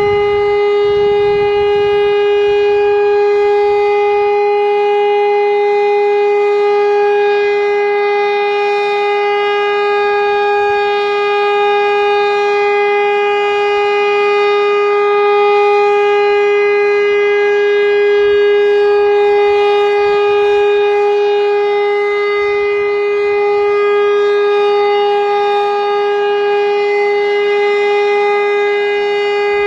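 Elektror L141 WW2-era electro-mechanical air-raid siren sounding a loud, steady continuous tone at an unchanging pitch during a siren test, with slight swells in loudness.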